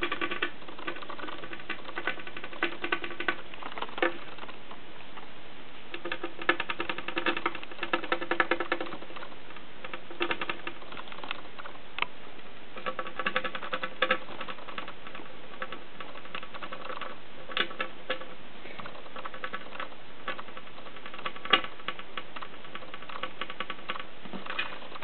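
Homemade flyback transformer driver running off a single 1.5 V C battery, firing high-voltage pulses: fast irregular ticking and snapping that comes and goes in bursts, some with a faint buzz, and a few louder single snaps.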